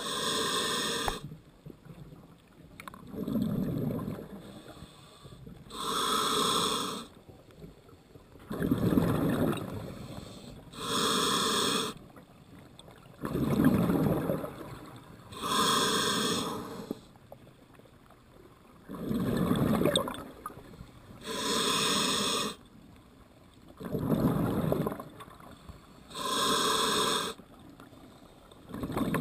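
Scuba diver breathing through a regulator: each inhale is a short hiss through the demand valve, and each exhale is a longer low gurgle of bubbles. About six breaths follow one another at a steady pace, roughly one every five seconds.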